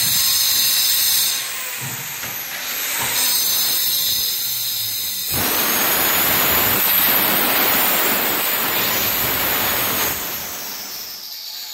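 Small handheld electric circular saw cutting laminate (mica) sheet: a high motor whine, then a louder cutting noise from about five seconds in as the blade runs through the sheet, winding down with a falling whine near the end.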